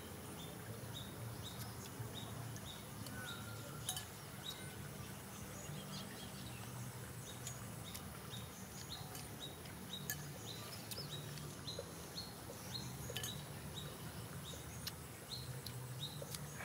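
A short high chirp repeating steadily about twice a second, over a faint steady low hum, with a few soft clicks scattered through.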